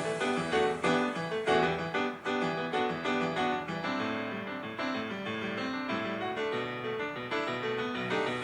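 Recorded piano music: a quick succession of notes over a steady accompaniment.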